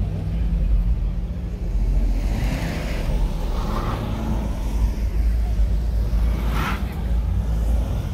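A car engine idling with a steady low rumble. A short sharp burst of noise comes about six and a half seconds in.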